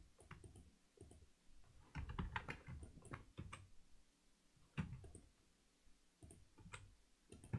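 Faint computer keyboard keys and mouse clicks, scattered, with a quick run of several clicks about two seconds in.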